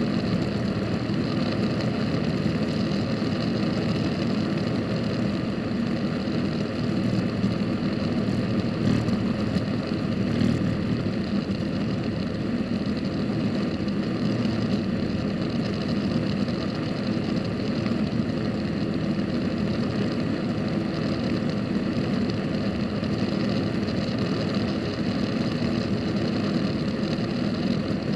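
Helicopter engine and rotor running steadily: a continuous, unchanging drone.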